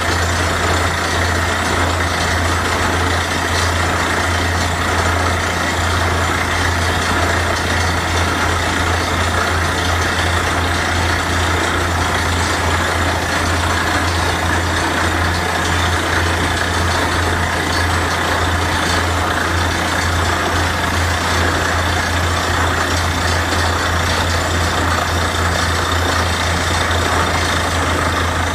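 Borewell drilling rig running continuously, its heavy diesel engine giving a steady low drone under a dense mechanical rushing noise.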